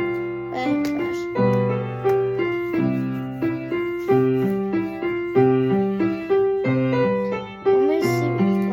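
Piano music: a steady sequence of sustained notes and chords with a regular beat.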